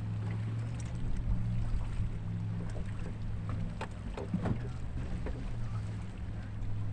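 A boat's steady low hum, with scattered small clicks and knocks, the loudest of them about four and a half seconds in.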